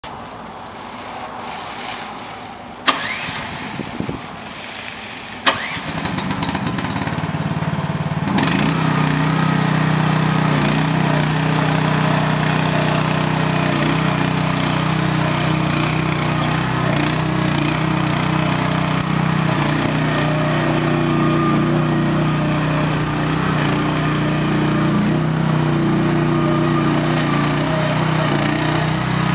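MIVA VA13 mini excavator's small engine running, with two sharp clicks in the first few seconds; about eight seconds in it comes up to a steady, louder run as the machine travels on its tracks.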